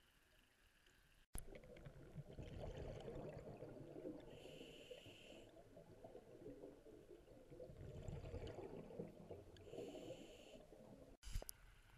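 A scuba diver breathing through a regulator, heard muffled through an underwater camera housing: rumbling, gurgling exhaled bubbles, with two short inhalation hisses about five seconds apart. It starts about a second in after near silence and cuts off abruptly near the end.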